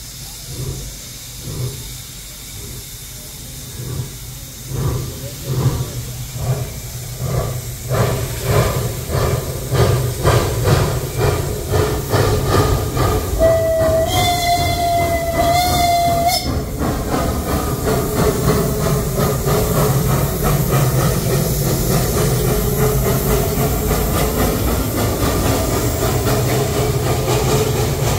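Narrow-gauge forestry steam locomotive starting off: regular exhaust chuffs begin a few seconds in and quicken as it gathers speed. Its steam whistle sounds once for about three seconds midway, then the train runs on with a steady noise.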